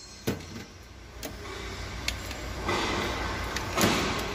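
A few sharp metallic clicks from hand work on the valve rocker arms and adjusting screws of a Deutz TD 2011 L04 engine during a valve clearance adjustment, over a steady low hum, with a louder stretch of rustling noise near the end.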